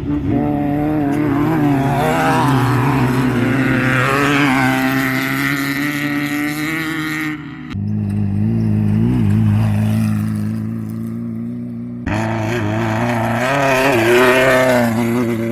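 Off-road desert race vehicles' engines running hard and revving through a turn, pitch rising and falling. The sound changes abruptly about halfway through and again near the end, as one passing vehicle's engine gives way to another's.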